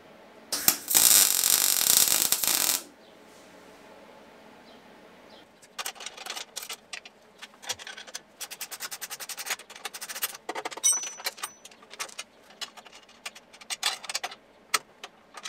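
Welding arc crackling for about two seconds near the start as the new exhaust is welded to the engine, then after a pause a long run of short, irregular crackles and clicks.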